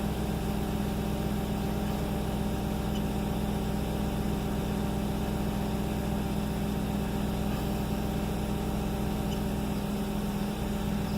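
2006 Audi S4's 4.2-litre V8 idling steadily with a new ignition coil on cylinder 2; the owner judges the misfire cured, with no more misfiring or shaking.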